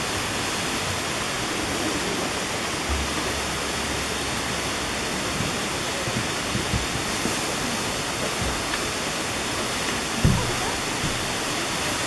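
Steady rushing noise of a partly frozen waterfall, water pouring down through ice formations and splashing at the base. A single dull thump is heard about ten seconds in.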